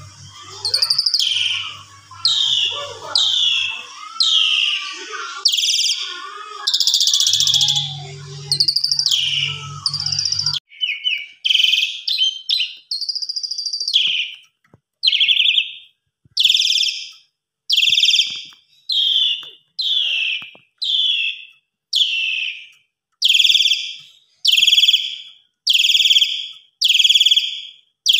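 Javan pied starling (jalak suren) singing. The first part is a varied, busy song over a low hum. After about ten seconds it becomes a run of loud, shrill calls, each sliding down in pitch, repeated about once a second.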